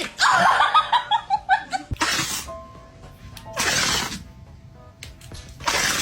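A dog sneezing three times, sudden short bursts about two seconds apart, the last near the end, over faint background music. Before the first sneeze comes a quick falling run of laugh-like pulses.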